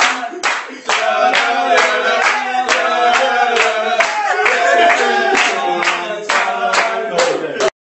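A group singing together over steady rhythmic hand-clapping, about three claps a second; it cuts off abruptly near the end.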